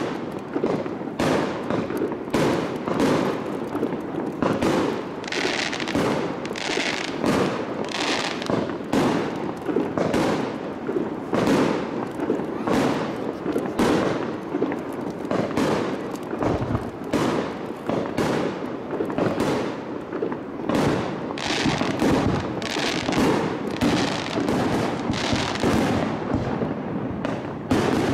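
Aerial fireworks barrage: shells launched and bursting in quick succession, the booms following one another closely without a break.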